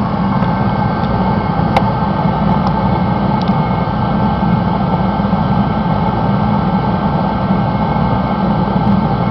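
Mr. Heater contractor series forced-air torpedo heater running steadily at full fire, the even noise of its fan and burner. There is a sharp click about two seconds in.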